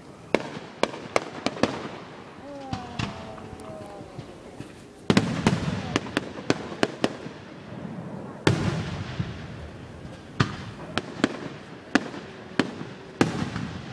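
Aerial firework shells bursting in a rapid series of sharp bangs and cracks. The loudest booms come about five, eight and a half and thirteen seconds in.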